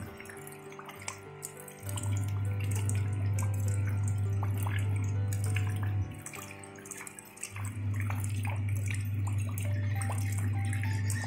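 Rain falling into a shallow puddle on gravel, a dense patter of drops, with soft music of held notes over a deep bass tone that drops out twice.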